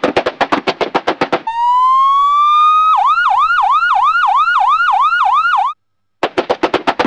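A police car siren sound effect: a wail rising slowly in pitch, then switching to a fast repeating yelp about four times a second before cutting off suddenly. Rapid even clattering taps come before the siren and start again shortly after it stops.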